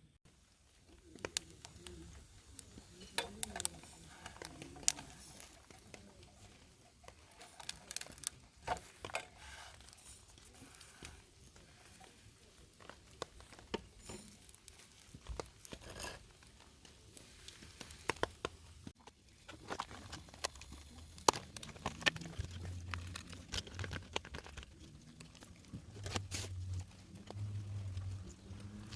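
Rustling, crinkling and small clicks and knocks of things being handled inside a tent, with a low rumble coming and going in the second half.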